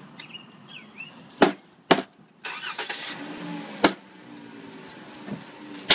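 Four sharp knocks or bangs, the first two about half a second apart and the others about two seconds apart, with a short rush of noise between the second and third.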